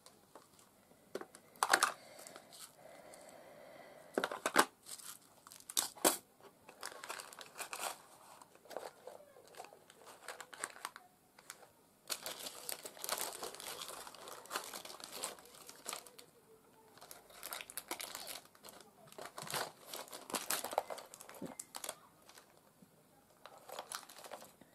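Hands rummaging through a clear plastic storage box of paper and plastic craft embellishments: steady crinkling and rustling, with a few sharp knocks of plastic in the first six seconds.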